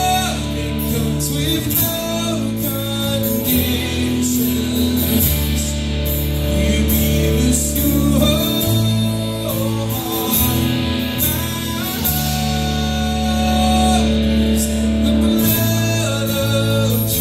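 Live worship band playing a song, with guitar and singing over steady bass chords that change every few seconds.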